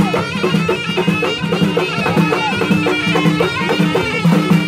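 Moroccan Alaoui folk music played live: shrill reed pipes hold a droning melody over frame drums beating a steady, fast rhythm.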